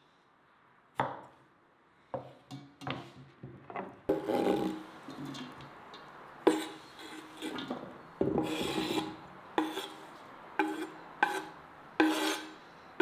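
A kitchen knife chopping potato slices on a wooden cutting board in a few short, sharp strikes, then scraping the cut pieces across the board into a steel bowl in a run of scraping strokes.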